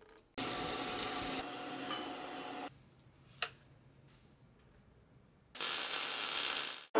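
A horizontal metal-cutting band saw runs for about two seconds. A single sharp click follows. Then a Lincoln 180 MIG welder's arc crackles and hisses for about a second and a half before cutting off abruptly.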